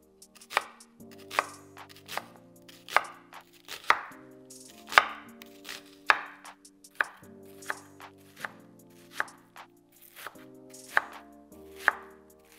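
Chef's knife chopping a white onion on a wooden cutting board: a steady series of sharp knocks of the blade through the onion onto the board, about one or two a second.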